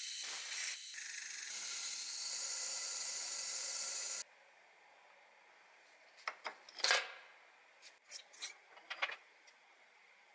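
Hole saw cutting through a metal block on a milling machine: a steady scraping hiss with a faint whine, which stops abruptly about four seconds in. After that come a few light metal clinks as the block and the cut-out core are handled in the vise.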